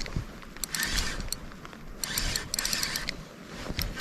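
Fishing reel being cranked in short spurts, its gears clicking and whirring, as a hooked smallmouth bass is reeled in.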